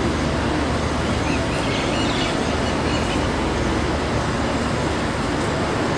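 Steady low rumbling outdoor background noise, an even din with no distinct events.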